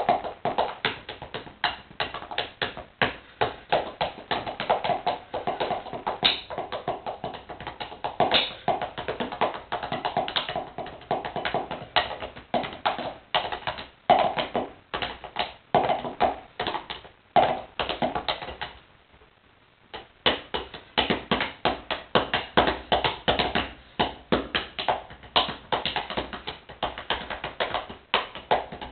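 Wooden drumsticks drumming fast rhythms on a pair of sneakers: a dense run of sharp taps and clicks on the shoes' soles and uppers, with a break of about a second some nineteen seconds in before the drumming picks up again.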